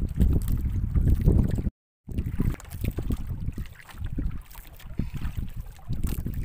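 Wind buffeting the microphone over water slapping against a small outrigger canoe at sea. The sound cuts out completely for a moment near two seconds in; after that the wind is lighter and short splashes and knocks stand out.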